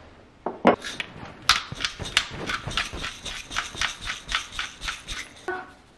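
Thick lentil and tomato sauce simmering in a pot, its bubbles popping in an irregular series of short pops, about three or four a second.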